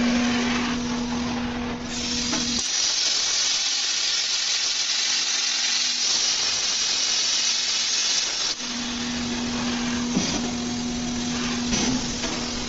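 CNC plasma cutting machine working on steel: a loud, steady hiss with a steady machine hum underneath. The hiss grows stronger and the hum drops out from about two and a half seconds in, for some six seconds.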